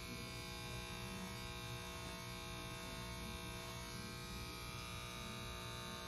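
Corded electric hair clippers running with a steady buzz as they are moved over a boy's short hair.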